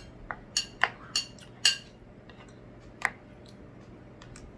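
Spoons clinking against ceramic plates and a baking dish as cauliflower rice is scooped and served: a quick run of sharp clinks in the first two seconds, one more about three seconds in, then only faint taps.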